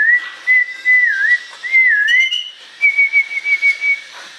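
A clear whistled tune: a held high note that dips down in pitch three times, then a quick run of short repeated notes a little higher near the end.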